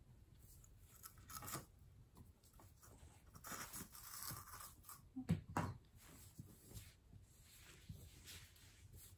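Scissors cutting into a T-shirt, with fabric rustling and a longer tearing cut about three to four seconds in, and two sharp knocks a little after five seconds.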